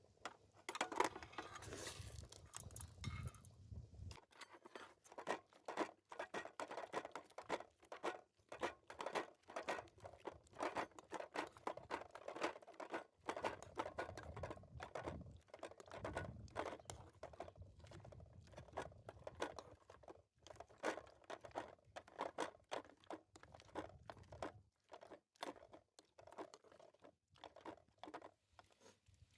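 A long run of quick, irregular crunches and clicks, several a second, as of food or dry material being handled, cut or broken up.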